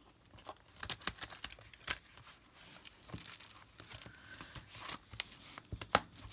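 Handling noise of a pocket-sized leather planner and its inserts: paper and plastic rustling and slipping, with scattered light clicks and taps. Two sharper clicks stand out, about two seconds in and near the end.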